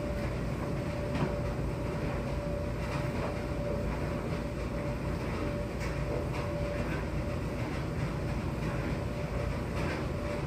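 Coin-operated tumble dryer running: a steady low rumble with a thin, steady hum and a few faint knocks from the load turning.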